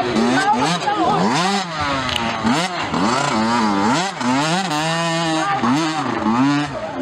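Small youth motocross bike engine revving hard, its pitch climbing and falling over and over, with a steadier stretch near the end.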